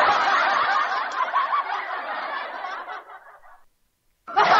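Laughter, dense and shrill, that fades away after about three and a half seconds and then stops dead, before starting again near the end.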